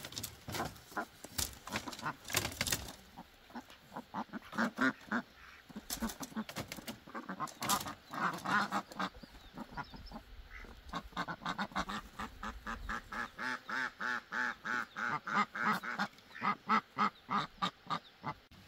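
Domestic ducks quacking loudly in quick runs of short calls, several a second, with a few sharp knocks among them in the first seconds.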